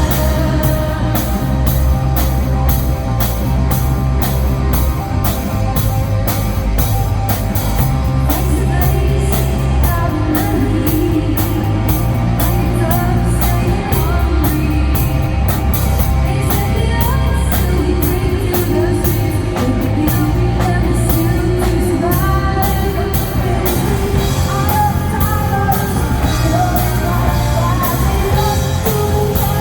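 Rock band playing a song with a singer, with a steady drum beat and guitar.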